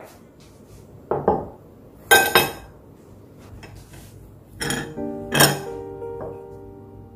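A porcelain plate and a knife set down on a wooden table, making about five sharp clinks and knocks, a pair of them close together near the middle. Soft piano background music plays throughout.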